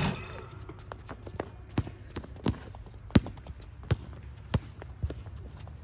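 A basketball hits the rim with a clang that rings briefly, then is dribbled on the hard court: sharp bounces about one and a half a second.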